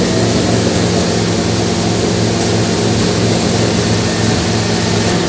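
Motorboat under way at speed: a steady engine drone with a low throb, under a constant rush of wind and water.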